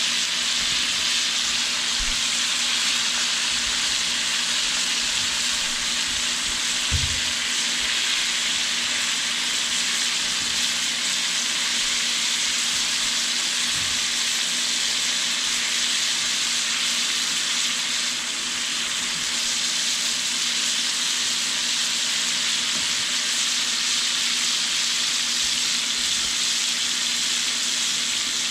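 Floured burbot chunks deep-frying in hot oil in a cast-iron skillet, sizzling steadily, the oil still bubbling hard because the fish is not yet done.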